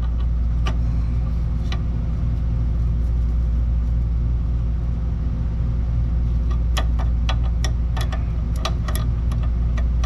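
A steady low hum, with a quick run of sharp metallic clicks and ticks in the last few seconds: a wrench working on brake line fittings.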